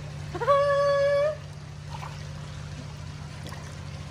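A single high, held "oooh" voice, scooping up about half a second in and lasting about a second, over a steady low hum.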